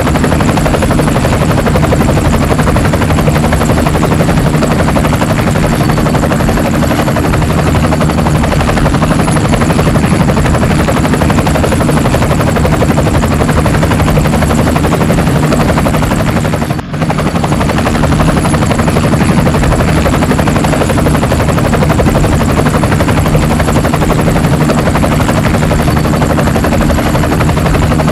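Helicopter flying low and hovering, running loud and steady, with one brief dropout a little past the middle.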